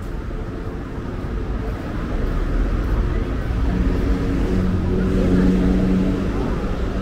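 City street traffic: a low rumble with a motor vehicle's engine hum coming close and growing louder through the second half.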